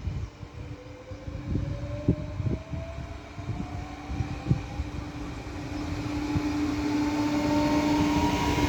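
ETR104 electric multiple unit running on the rails: a motor whine slowly rises in pitch while the sound grows louder, with irregular wheel knocks over rail joints.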